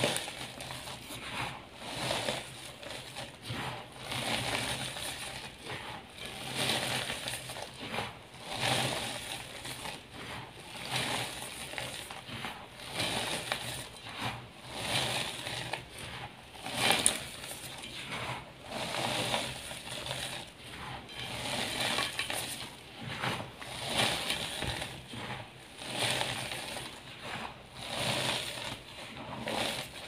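Gym chalk powder crumbling and crunching as hands squeeze and rub it, in repeated soft swells about every second or two, with one sharper crunch about halfway.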